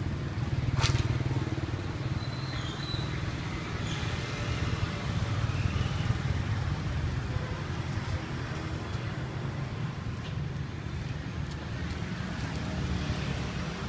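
Steady low engine rumble of motor vehicles on the street, with a sharp click about a second in.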